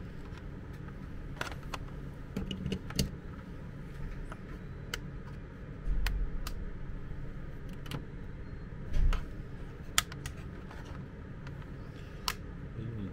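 Scattered sharp clicks and light knocks from hands working the plastic casing and power switch of a MET AIR T-100 mattress compressor, with dull thumps about six and nine seconds in. The compressor does not start: an internal contact has come loose.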